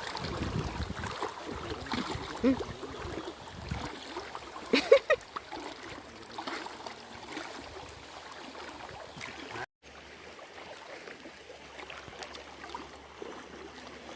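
Water running and splashing, with a few short high-pitched calls about two and five seconds in. The sound drops out completely for a moment near the middle.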